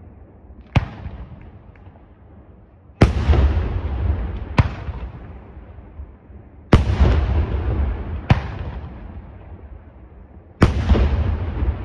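Aerial firework shells bursting overhead. There is a sharp bang about a second in, then three heavy booms about every three and a half seconds, each with a long rolling echo. The first two booms are each followed by a sharp crack about a second and a half later.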